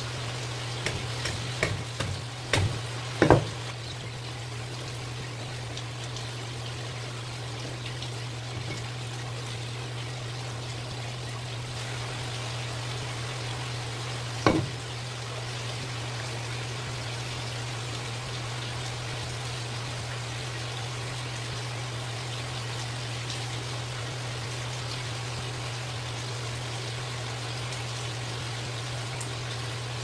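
Steady hiss of running water over a low hum, with a few sharp knocks in the first few seconds and one about halfway, as a knife cuts through the head and bones of a large yellowtail on a plastic cutting board.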